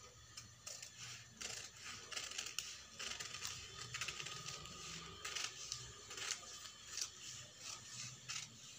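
Scissors cutting through newspaper: repeated, irregular snips with the paper crackling as the blades close.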